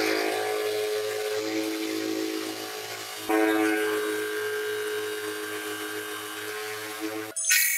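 Bench grinder running a wire wheel with a steady motor whine and a scratchy brushing hiss as rusty bolts are held against it to strip the rust. The sound jumps louder suddenly about three seconds in and cuts off near the end.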